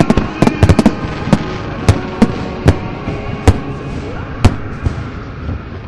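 Aerial fireworks going off: a rapid cluster of bangs in the first second, then single bangs every half second to a second that thin out and stop near the end.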